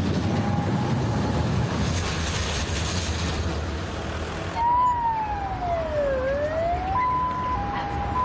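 City street noise, a steady rush with a low rumble, cuts off suddenly about four and a half seconds in. An electronic tone then glides down and back up, followed by a few plain held notes of a slow electronic melody.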